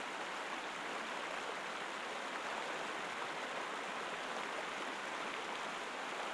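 River rapids running over rocks: a steady rush of water.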